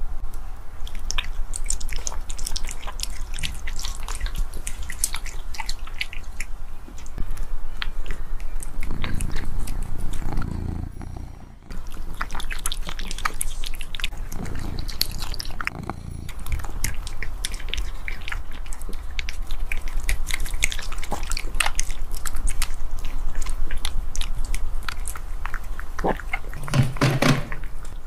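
A cat chewing and biting raw meat: a dense, irregular run of wet smacks and sharp chewing clicks.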